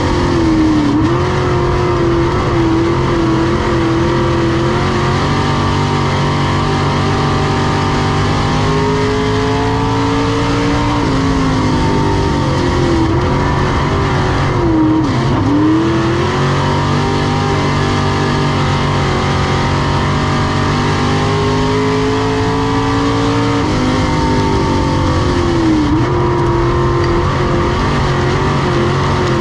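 Semi late model race car's engine running at race pace on a dirt oval. Its pitch climbs steadily down the straights and dips sharply as the throttle is lifted for the turns, several times over.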